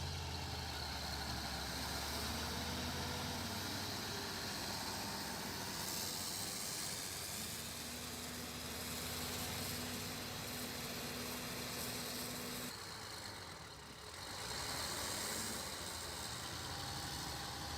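Heavy machine engine running steadily, with a steady hum joining in for about five seconds midway and a brief dip in level near the end.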